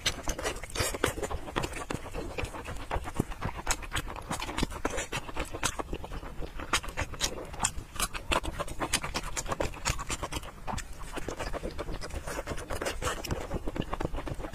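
Close-miked eating of fatty braised pork belly: wet chewing and lip-smacking, a dense irregular run of sticky mouth clicks.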